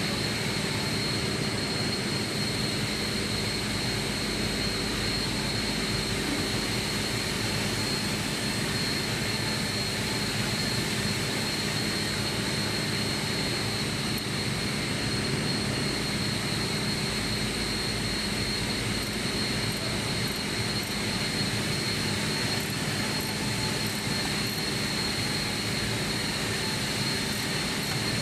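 Steady drone of running industrial machinery, with a constant high-pitched whine over a low hum.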